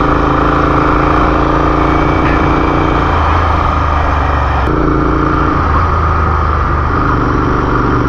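Royal Enfield 650 parallel-twin motorcycle engine running on the move, its note shifting a few times as the throttle changes, over a steady rush of wind. At this high altitude the engine is down on power.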